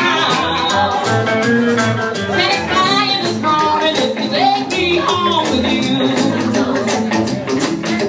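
Live band playing: a woman singing with vibrato over hollow-body electric guitar, upright double bass and a drum kit keeping a steady beat.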